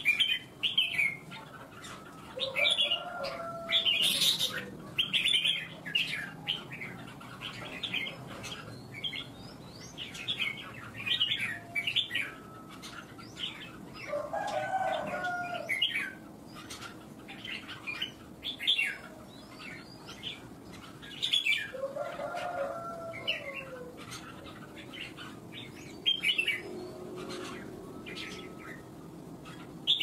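Caged red-whiskered bulbuls singing short, quick whistled phrases against each other in competition song. A lower, longer call from another bird comes three times, a few seconds in, halfway through and about two-thirds of the way through.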